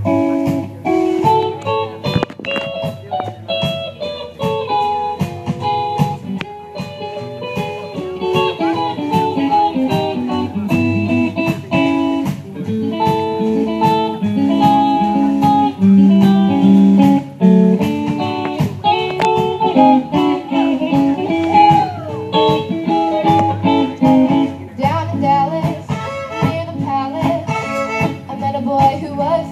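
A fiddle band playing with guitar accompaniment: a steady run of sustained fiddle notes over plucked guitar.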